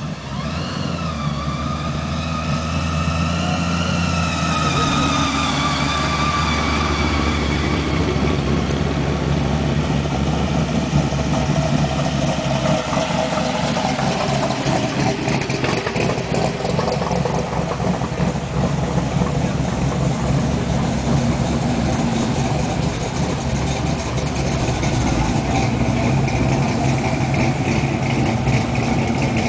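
Engines of classic cars rumbling at low speed as they roll past one after another, a steady low exhaust note. A higher tone wavers up and down over the first several seconds.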